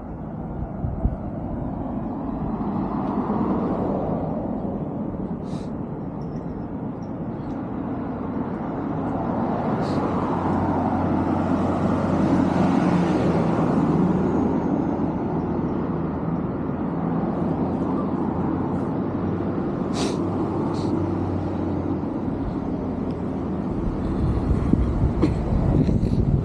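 Street traffic heard while walking: vehicles passing, with swells about three seconds in and around the middle, and an engine running steadily under it for much of the time. A few short sharp ticks stand out.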